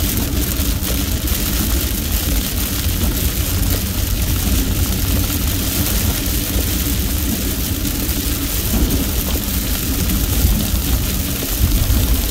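Heavy rain hitting a car's windshield and roof, over a steady low rumble of engine and tyres on the wet road, heard from inside the moving car.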